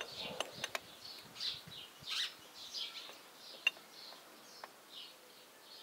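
Faint small-bird chirps repeating every half second or so, with a few light metal clicks from gears and a shift fork being moved by hand inside an open tractor gearbox; the sharpest click comes a little past halfway.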